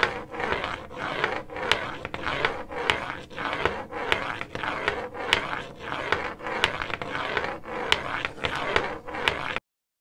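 Marshmallow tip of a folding white cane sweeping across a tile floor: a continuous scrape with a sharp click roughly every half second. It cuts off suddenly near the end.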